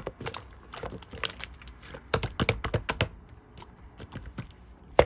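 Clear slime being squeezed and pressed by hand, giving crisp irregular clicks and pops, bunched together about two seconds in, with one loud pop at the end.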